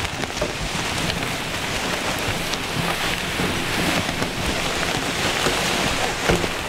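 A log being skidded over the forest floor by a Belgian draft horse: a steady rustling, scraping rush that swells midway.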